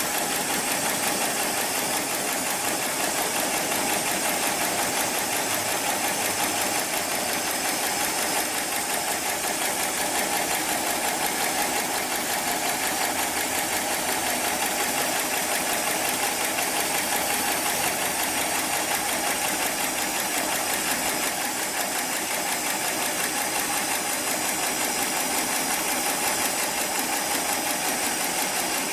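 Heavy-duty programmable pattern sewing machine running a stitch cycle, its needle bar striking in a rapid, even rhythm as it sews thick webbing for slings and straps.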